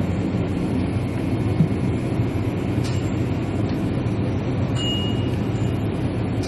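Steady low rumble and hiss of convenience-store room noise, with a brief high beep about five seconds in.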